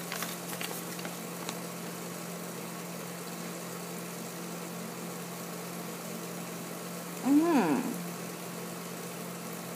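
Paper checklist crackling faintly as it is unfolded and handled, over a steady low hum. About seven seconds in, a woman gives a short questioning 'hmm'.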